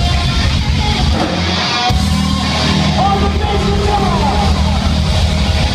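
Live hard rock band playing loudly: distorted electric guitars, bass and drums, with pitch-bending vocal or guitar lines. The low end drops out briefly just before two seconds in and the full band comes back in.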